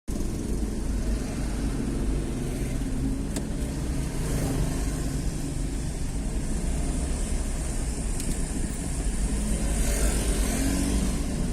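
A vehicle travelling along a road, with steady engine and road noise and a low rumble throughout.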